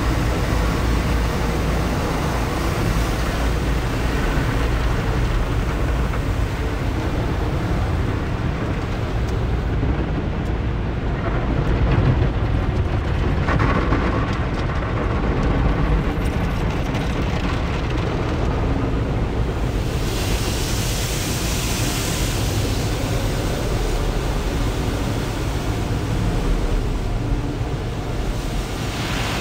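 Automatic tunnel car wash heard from inside the car's cabin: water spray and foam beating on the windshield and roof, with cloth brushes rubbing over the glass, a steady dense wash of noise with a heavy low rumble. The high hiss falls away for a stretch in the middle and comes back about two-thirds of the way through.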